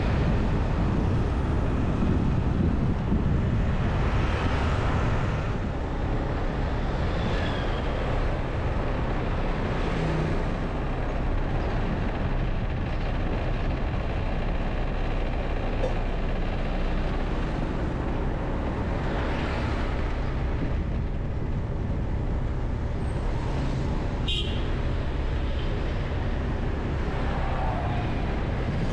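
Steady road and traffic noise heard from a moving vehicle on city streets, with other vehicles swelling past now and then. A short, sharp high sound cuts in about three-quarters of the way through.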